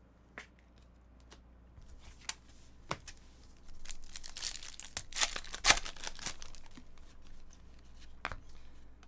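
Foil wrapper of a trading-card pack crinkling and tearing as it is ripped open by hand, loudest about halfway through. Softer rustling of the cards being slid out and handled follows.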